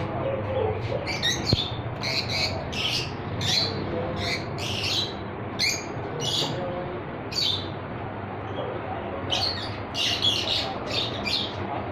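Pet birds chirping and squawking in quick, sharp, high-pitched calls, in two busy spells with a short lull in between, over a steady low background hum.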